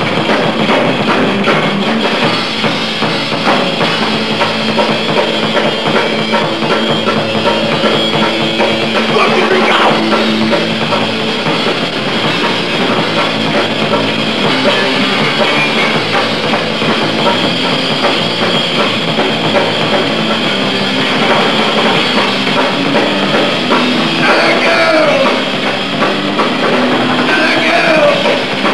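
Hardcore punk band playing live and loud: distorted electric guitar and bass through amplifiers over a pounding drum kit.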